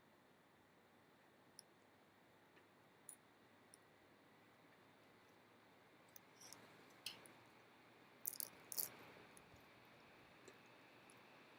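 Near silence with scattered faint clicks, and a cluster of sharper clicks and taps about seven to nine seconds in.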